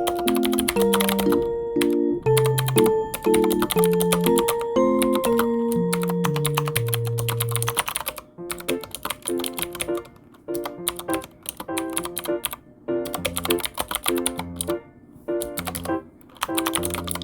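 Typing on a computer keyboard: fast runs of key clicks with brief pauses, over gentle background music that drops in level about halfway through.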